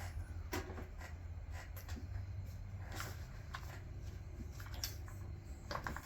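Scattered light clicks and small knocks of hand tools and chainsaw parts being handled while the saw's handle is taken apart, over a low steady hum.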